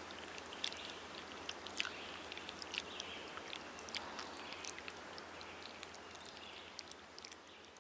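Faint outdoor nature ambience: a low steady hiss with scattered small ticks and faint chirps, fading down near the end.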